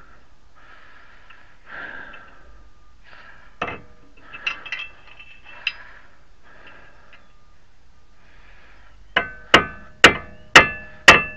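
Hammer striking a staking punch on a front axle nut, five sharp ringing metal blows about two a second near the end, staking the nut's collar into the axle groove so it can't loosen. Before them, a few faint clinks of tools.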